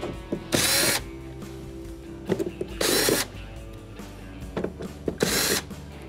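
Cordless drill-driver with a Phillips bit backing screws out of a dryer door's sheet-metal panel, running in three short bursts of about half a second each, roughly two and a half seconds apart. Light clicks fall between the bursts.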